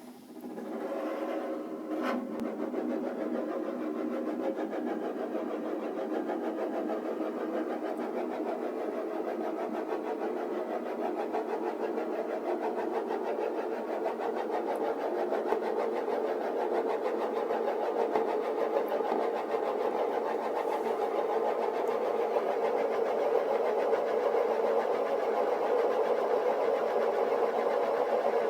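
Small motor of an auto-flipping crystal paperweight award running with a steady mechanical whirring buzz. It starts up right at the beginning and grows slightly louder over the stretch.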